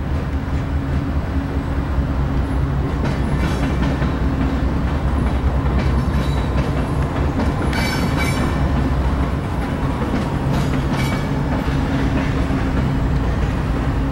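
Freight train of covered hopper cars rolling past close by: a steady low rumble with wheels clacking over the rail joints. Sharper metallic clatter comes now and then, with a brief high ringing screech about eight seconds in.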